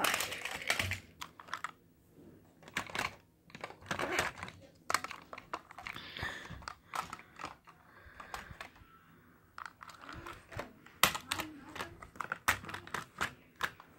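Irregular clicking and clattering of plastic toy train pieces, track and sheds being handled.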